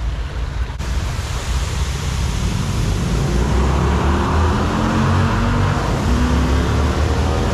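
Small waterfall pouring over a concrete weir and splashing onto wet rocks: a steady rushing that grows louder a few seconds in, over a low rumble.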